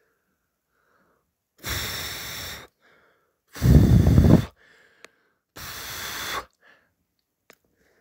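Three breathy exhalations close to the microphone, each about a second long and about two seconds apart; the middle one is the loudest and blasts the microphone.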